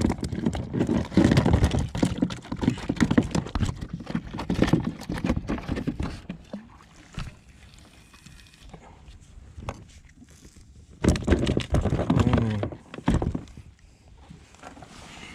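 Quick irregular knocking and clattering on the kayak deck as the catch and tackle are handled, dying down about six seconds in, with a second short burst of knocks around eleven seconds in.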